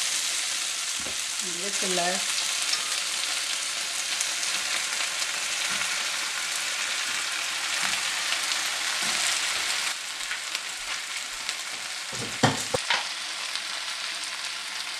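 Eggplant, onion and green chillies sizzling in hot oil in a nonstick wok. The sizzle drops a little about ten seconds in, after raw shrimp are tipped into the pan, and a few sharp knocks follow a couple of seconds later.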